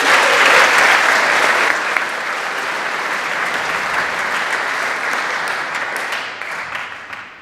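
Large audience applauding, loudest at the start, holding steady, then dying away near the end.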